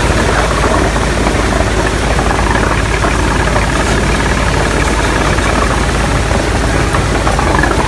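Engine running steadily with a dense, low, fast pulsing, the working noise of a carrot-washing machine in operation.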